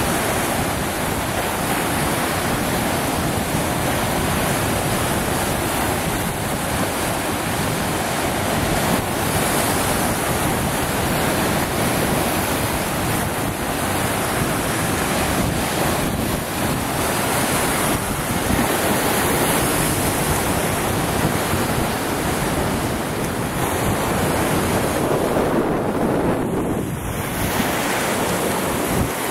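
Lake Superior surf breaking and washing over shoreline rocks in a steady rush of waves, with wind buffeting the microphone.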